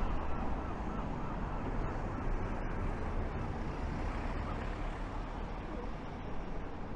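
Steady road traffic noise with a low rumble, easing slightly towards the end.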